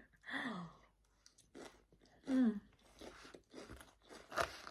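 Close-up chewing and crunching of a Caesar salad, crisp lettuce and croutons breaking between the teeth in short, sharp strokes that grow denser in the second half, with two brief hums of the eater's voice.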